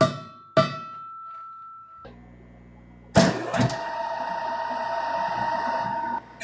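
Two sharp ringing strikes on metal, then a power tool running steadily for about three seconds and stopping suddenly near the end.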